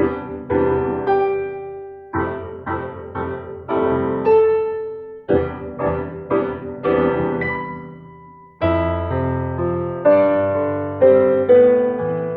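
Slow, gentle solo piano melody on a Casio WK-110 digital keyboard's piano voice: phrases of struck notes and chords that ring and fade. A brief lull comes about eight seconds in, followed by a fuller passage of held chords.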